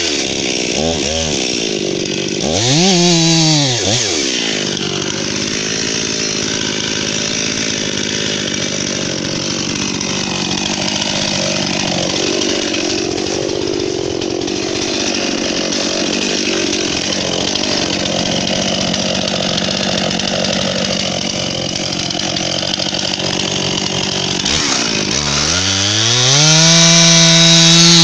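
Stihl MS 261 two-stroke chainsaw dropping from full throttle to idle, blipped up and down once about three seconds in, then idling steadily for about twenty seconds. Near the end it is revved back up to a high, steady full-throttle pitch, louder, as the next cut begins.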